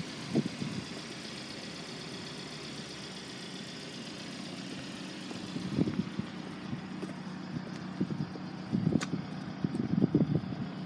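Steady low hum of an idling motor vehicle engine, with scattered low thumps from about halfway through and a single sharp click near the end.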